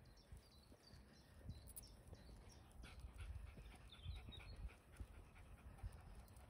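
Faint panting of a dog out on a walk, with a few faint bird chirps.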